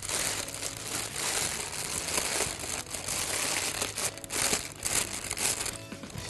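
A plastic bag of whipped cream crinkling and rustling as it is handled, dying away near the end.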